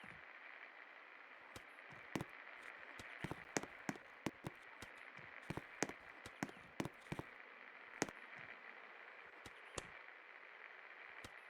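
Best Electric Works Alpha 56-inch ceiling fan running with a steady airy hiss, with irregular sharp clicks and taps, most of them in a burst through the middle.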